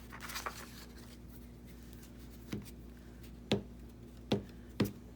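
A few faint paper rustles, then from about halfway in a series of sharp light taps on a tabletop, roughly one every half second to second, during hands-on paper crafting with glue.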